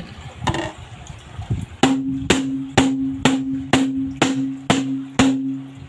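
Riflescope being pounded about eight times in a steady rhythm, roughly two knocks a second, each knock ringing briefly. This is a shock test to check that the repaired T-Eagle 5-20x50 SFIR scope holds its zero.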